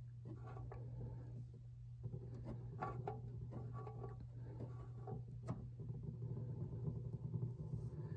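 Faint scattered clicks and small handling noises as the plastic oil-filter drain tool is worked at the filter housing, over a steady low hum.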